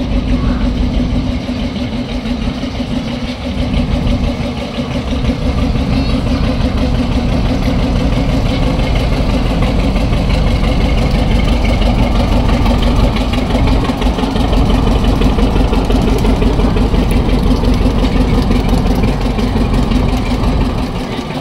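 Small switcher locomotive's engine running steadily as it pulls a short train of open passenger cars past, growing louder about five seconds in as it draws closer.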